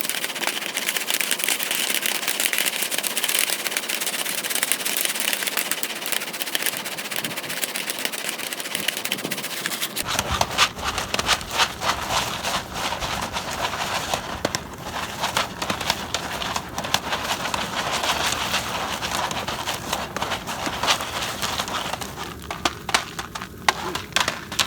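Jiffy Pop popcorn popping in its foil pan over a crackling campfire: a dense crackle with sharp individual pops, which grow louder and more frequent from about ten seconds in.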